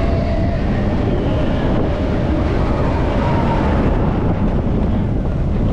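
Vekoma roller coaster train rolling along its steel track, a steady dense rumble of wheels on rails, with wind buffeting the microphone.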